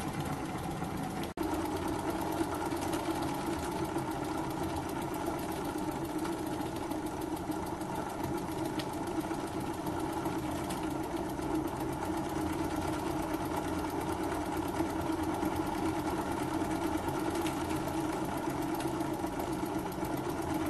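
Small single-cylinder oscillating (wobbler) live-steam model engine running fast and steady with an even mechanical chatter: it is running well and smoothly. There is a brief break about a second in.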